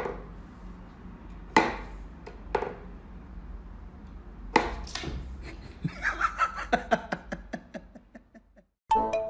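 Sharp wooden knocks and clicks from a wooden whack-a-mole cat toy as its pegs are pushed and its pop-up mouse is played with. A few separate knocks are followed by a quick run of softer clicks.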